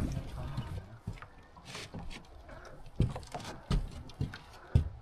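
Irregular knocks and thumps, about six in five seconds, with faint clattering between them, typical of tackle and feet knocking on a small boat's hull and deck.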